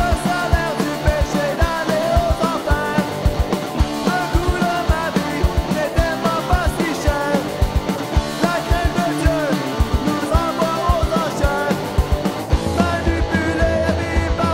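French Oi! street-punk song: a full rock band with guitars and a drum kit keeping a fast, steady beat, a bending melody line on top.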